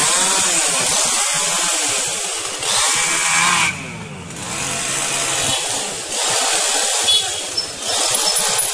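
Leafy branches of a fallen tree rustling and scraping as they are hauled and dragged across the road, in loud surges that rise and fall.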